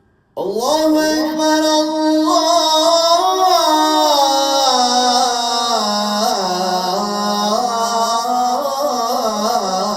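A muezzin singing the call to prayer (ezan) in makam rast. After a brief pause at the very start, one long melismatic phrase of held notes and ornamented turns steps gradually down in pitch.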